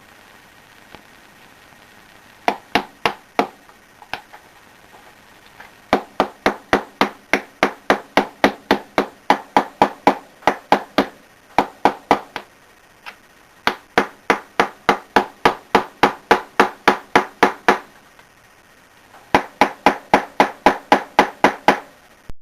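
Hammer blows on metal, about three a second, in several runs with short pauses; each blow rings briefly. The sound fits driving a bearing out of or into the tub of a Maytag Neptune front-load washer.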